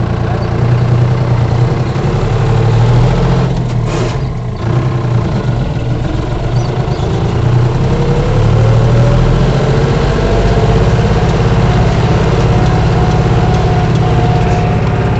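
Farm tractor engine running steadily under way, heard from the driver's seat. About six seconds in, a whine rises in pitch and then holds.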